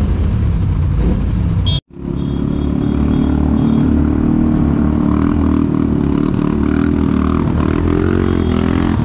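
Several ATV engines running together, cut off abruptly about two seconds in, followed by a single quad bike engine running steadily at moderate revs, its pitch rising and falling slightly as it rides a muddy trail.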